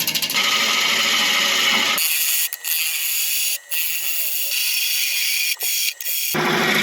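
Woodturning on a lathe: a turning tool working the spinning grass tree root wood. The full noise drops to a thinner high hiss about two seconds in, with a few short gaps, and comes back in full near the end.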